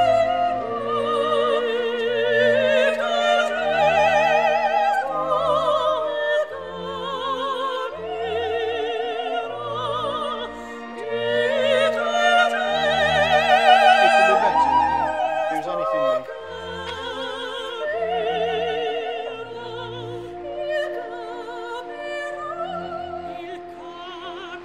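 Operatic singing with a strong vibrato over orchestral accompaniment, laid over the footage as background music, with bass notes moving beneath in a steady beat.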